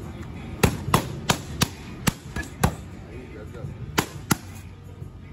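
Boxing gloves punching focus mitts: a flurry of six sharp smacks about a third of a second apart, then after a pause two more in quick succession.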